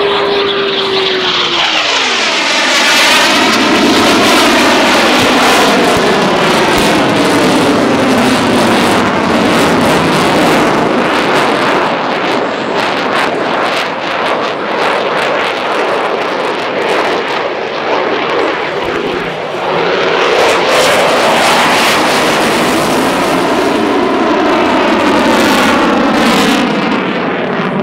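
Eurofighter Typhoon's twin EJ200 jet engines roaring loudly during a display flypast, the sound swelling and sweeping in pitch as the fighter passes and turns. A whine drops in pitch in the first two seconds as the jet goes by.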